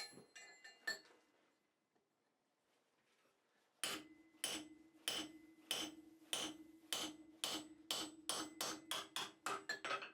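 Blacksmith's hammer forging steel on an anvil: a few light clinks, then after a pause a series of sharp ringing blows. The blows speed up from about two a second to about four a second near the end.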